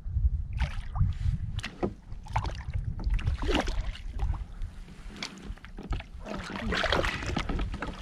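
A hooked codling splashing and thrashing at the surface beside a kayak as it is reeled up and lifted from the water, in irregular splashes with a heavier burst near the end.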